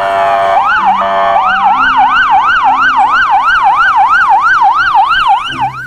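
Police car sirens. They start with a mix of wailing and steady tones, then about a second and a half in switch to a fast yelp sweeping up and down about three times a second. The yelp cuts off near the end.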